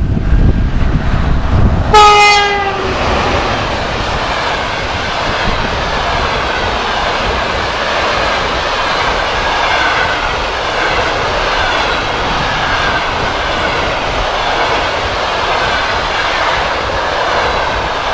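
An EP1M electric locomotive sounds a short single-tone horn blast about two seconds in, its pitch dropping slightly as it passes. Its passenger coaches then roll steadily past with a repeating clickety-clack of wheels over rail joints.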